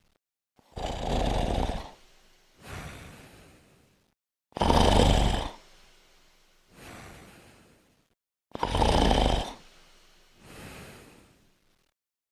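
A sleeping cat snoring: three loud snores about four seconds apart, each followed by a softer, longer breath out.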